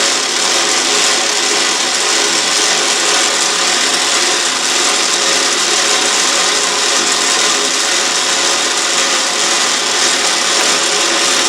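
Autobox 8x16 mini lathe running with its gear-driven auto feed engaged, the tool cutting a Delrin workpiece. A steady whine of several fixed tones over a hiss, with no change in speed or load.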